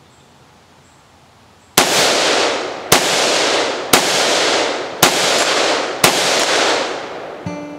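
Colt CSR-1516 5.56mm/.223 semi-automatic rifle fired five times, about a second apart, starting nearly two seconds in; each shot is followed by a long echoing tail. Acoustic guitar music comes in near the end.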